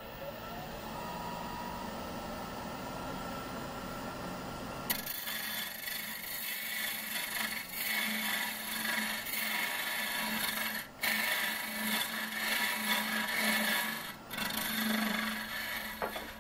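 Elbo hollowing tool cutting inside a spinning hard maple vessel on a lathe. The steady rough cutting noise starts about five seconds in, over the lathe's running, and breaks off briefly twice.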